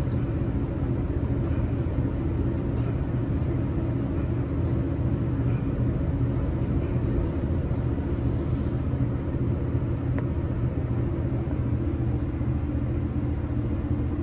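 US Elevator traction elevator cab riding with a steady low rumble, a faint high whine fading out about eight seconds in as the cab reaches its landing.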